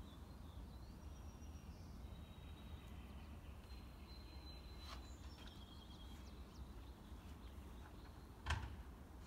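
Faint outdoor ambience: birds singing thin, high whistled notes over a low rumble, with one sharp knock about eight and a half seconds in.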